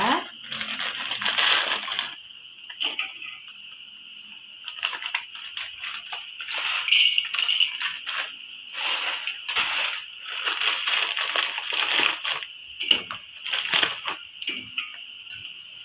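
Water boiling in a wok, with irregular scrapes, knocks and splashes as blocks of dried instant noodles are dropped in and pushed around with a metal spatula.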